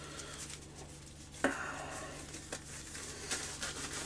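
Disposable gloves being pulled onto the hands: soft rustling and small clicks, with one sharper snap about a second and a half in, over a faint steady hum.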